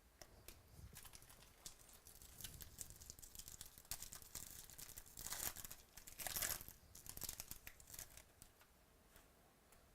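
A foil trading-card pack wrapper being torn open and crinkled, in faint irregular rustles. The loudest tearing comes about five and a half and six and a half seconds in.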